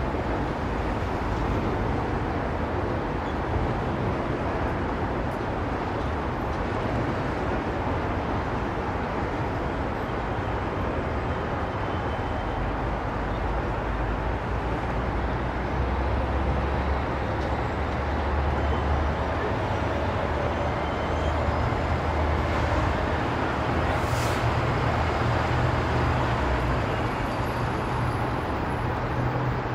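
Manhattan street din: a continuous wash of city traffic. A deeper low rumble swells from about the middle and fades near the end.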